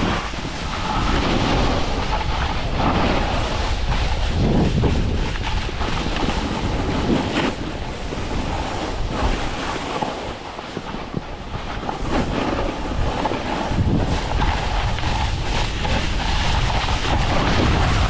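Wind rushing over the microphone of a camera carried down a ski slope, mixed with the scrape of snow under the moving rider; a steady, loud rush that dips briefly around the middle.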